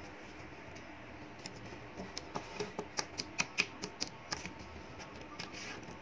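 Small magnetic balls clicking against one another in a quick, irregular run of sharp clicks, starting about two seconds in and lasting a couple of seconds, as a drum made of them is pressed onto the magnetic-ball truck body.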